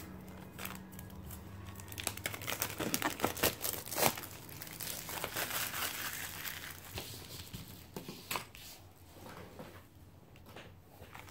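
Thin clear plastic packaging sleeve being torn open and crinkled as a notebook is pulled out of it. The crackling is busiest in the first half and thins out to a few handling rustles near the end.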